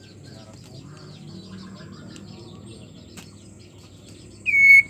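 Female white-rumped shama giving a loud, clear whistled call note that slides down in pitch near the end. It is a female in breeding condition calling to a male. Before it there is only faint twittering over a low background rumble.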